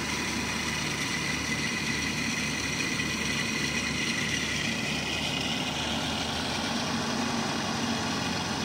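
Rice combine harvester's diesel engine running steadily, with a faint high whine over the hum, while the machine sits stuck in deep paddy mud.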